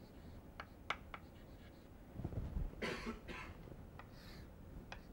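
Chalk ticking and scraping faintly on a blackboard as lines and labels are drawn, with a few sharp taps in the first second or so. A short cough near the middle is the loudest sound.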